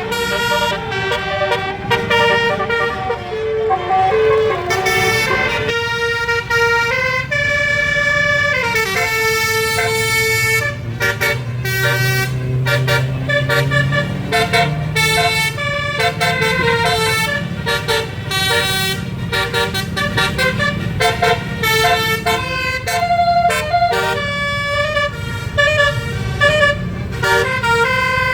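Telolet basuri 12-note multi-tone bus horn playing a continuous melody, its notes stepping quickly from pitch to pitch, over a low hum.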